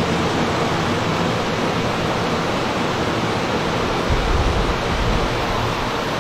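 Steady, even rushing noise of a large shop fan blowing air, with a brief low rumble about four seconds in.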